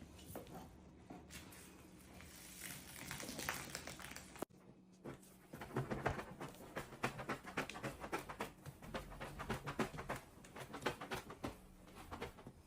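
Household cleaning sounds: a quick, irregular run of clicks, taps and light knocks over a faint steady hum, cutting off abruptly about four and a half seconds in and starting again busier after a second.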